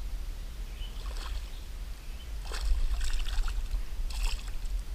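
A hooked smallmouth bass splashing at the surface as it is brought in and lifted from the water, in several splashes about a second in, around the middle and near the end, over a steady low wind rumble on the microphone.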